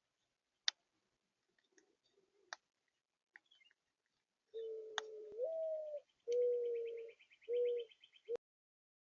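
Mourning dove cooing: a long low first note that rises partway, followed by three shorter, lower coos. A small bird's fast high trill runs over the later coos, and a few sharp clicks come earlier. The sound cuts off suddenly near the end.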